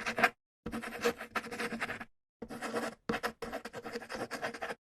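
Scratchy rubbing noise in several short chunks, each cut off abruptly into dead silence.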